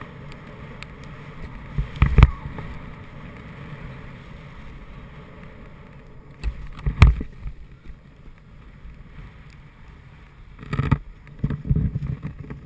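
Snowboard sliding over powder snow: a steady rush, broken by sharp knocks about two, seven and eleven seconds in.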